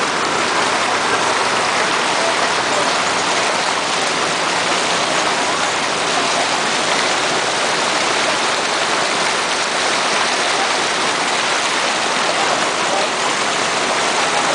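Floodwater rushing and splashing steadily as a vehicle wades through it, pushing a churning bow wave.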